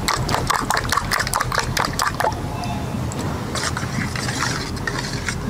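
Metal spoon beating raw duck eggs in a stainless-steel bowl: rapid clicks of the spoon against the bowl with the egg sloshing, thinning out after about two seconds. A steady low rushing noise lies underneath.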